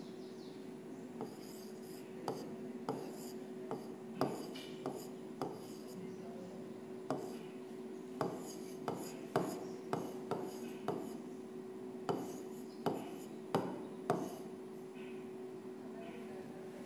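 Pen tip tapping and sliding on the glass of an interactive touchscreen board while writing: a string of irregular sharp taps with faint scratchy strokes between, over a steady low hum.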